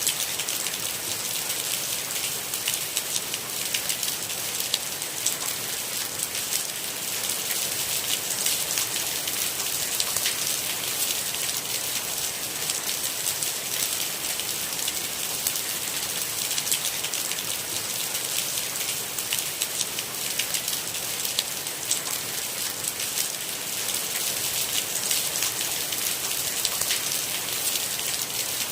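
Steady rain: a dense, even hiss of falling rain with many separate drop hits, unchanging throughout.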